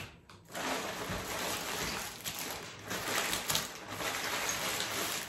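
Thin clear plastic packaging crinkling and rustling as it is handled, a dense crackle that starts about half a second in.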